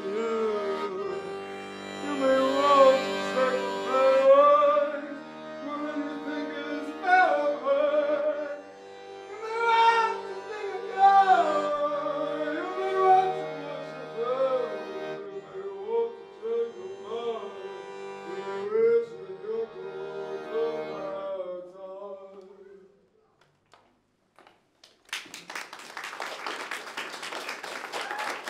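Accordion holding sustained chords under a wordless vocal melody that slides up and down. The music ends about 22 seconds in, and after a brief pause the audience starts applauding.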